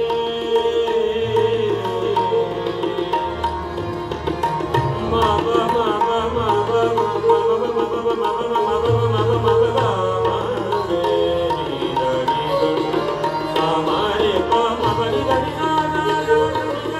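Sikh kirtan music: a harmonium holding and moving between sustained reed notes over a steady tabla accompaniment.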